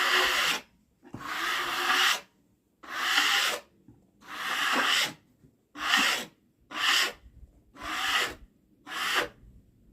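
Eight brisk rubbing strokes across wood, roughly one a second, each a short rasping swish; the strokes get shorter and come a little faster toward the end.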